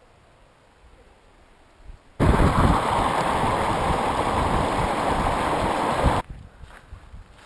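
Rushing stream water: after a faint start, a steady loud rush begins suddenly about two seconds in and cuts off abruptly about four seconds later.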